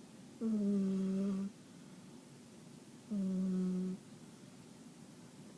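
A sleeping cat snoring: two tonal, whistle-like snores, each about a second long at a steady low pitch, coming with her breaths about three seconds apart.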